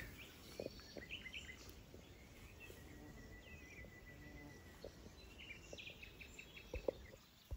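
Faint birdsong over open meadow: scattered high chirps, a thin held note, and a short run of quick repeated notes near the end. A couple of soft clicks come just before the end.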